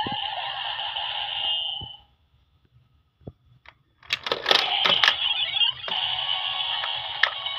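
A Kamen Rider Revice Megalodon Vistamp toy in its transformation driver plays an electronic jingle through its small speaker, which stops about two seconds in. After a short pause with a couple of plastic clicks, the stamp and driver are pressed and tilted with a clatter of clicks, and the toy starts a new looping electronic standby sound.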